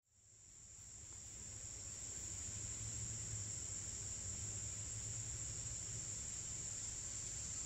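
Steady high-pitched insect chorus, fading in over the first couple of seconds from a brief silence, with a faint low hum underneath.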